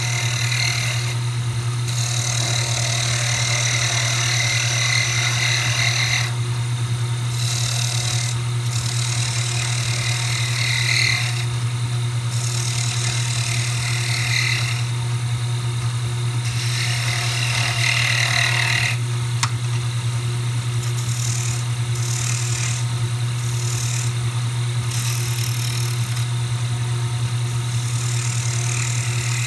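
Wood lathe running with a steady motor hum while a chisel cuts a small spinning wooden thimble. The cutting hiss comes and goes in stretches of a few seconds as the tool is pressed on and eased off.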